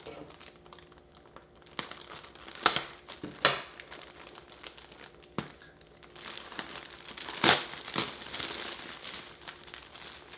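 Packaging crinkling and rustling in short, irregular bursts as the Pillow Cube is handled, with a louder crackle about two-thirds of the way through.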